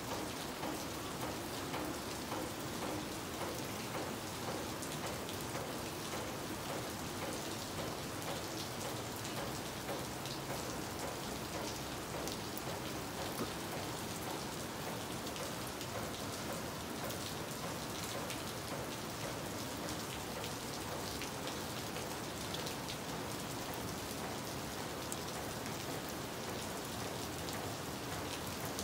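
Steady rain falling: an even hiss with many single drop hits scattered through it.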